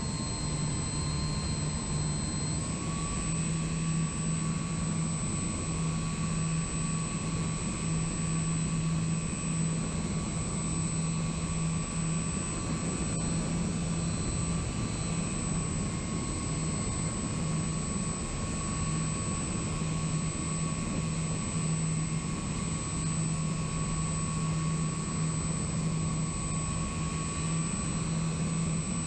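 Steady drone of a radio-controlled model plane's electric motors and propellers, picked up by its onboard camera, over a constant rush of wind. The pitch steps slightly a couple of times.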